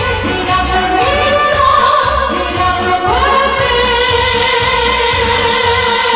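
A woman singing a slow, melodic song into a microphone over a backing track with a steady bass beat; from about halfway she holds one long note.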